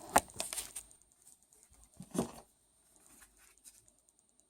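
A quick cluster of light clicks and knocks, then a single duller knock about two seconds in.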